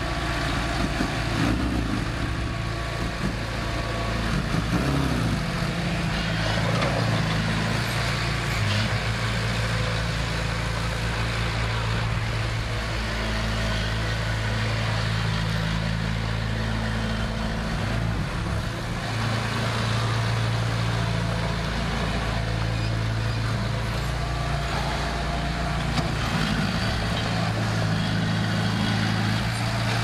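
Diesel engines of a small Komatsu D20A crawler bulldozer and a dump truck running steadily at low revs, the engine note shifting a little every few seconds.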